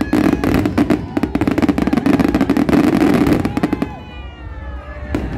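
Aerial fireworks going off: a dense run of bangs and crackling for about four seconds, then thinning to a few single bangs near the end.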